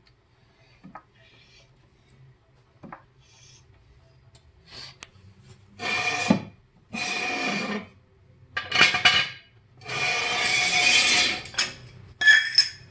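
Steel jack stand scraping and dragging across a concrete floor as it is pulled out from under the car: a few faint clicks, then about five loud rasping scrapes in the second half.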